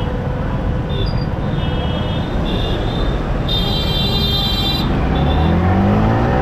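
Yamaha R15M motorcycle riding through road traffic, with heavy wind rush and engine noise, and vehicle horns honking: short toots, then a longer horn blast about three and a half seconds in. Near the end the engine revs up as the bike accelerates.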